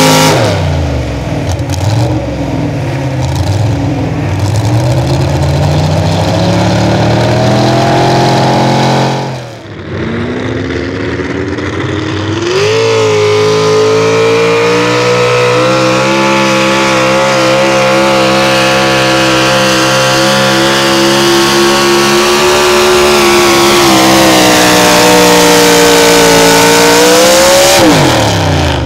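Supercharged V8 engines of super stock 4x4 pulling trucks running at high revs under load. The first truck's engine falls in pitch and wavers over the first several seconds. After a cut, a second truck's engine revs up to a steady high-rpm run for about fifteen seconds, then drops away sharply near the end as the driver lifts off at the end of the pull.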